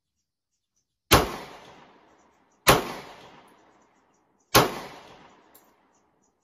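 Three shots from a Smith & Wesson SD40VE .40-calibre pistol. The first comes about a second in and the next two follow at intervals of about a second and a half to two seconds. Each shot trails off over about a second.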